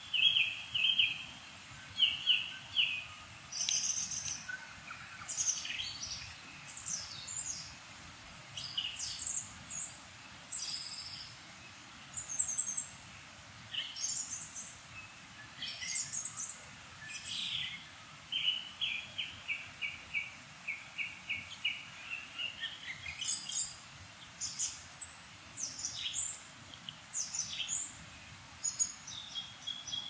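Redpolls calling: dry, rapid rattling trills of repeated notes, the longest about two-thirds of the way through, mixed with many short, high chirps.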